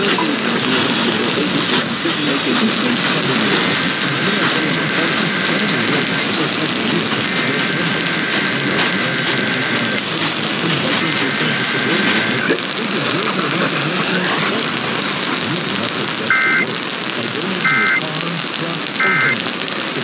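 AM broadcast-band static and hiss from a web software-defined radio receiver. Near the end come three short bursts of two-tone data warble about a second and a half apart: an Emergency Alert System SAME header, sent three times.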